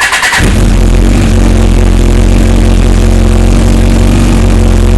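2000 Kawasaki ZX-12R's inline-four engine catching from the electric starter about half a second in, then idling steadily and loudly.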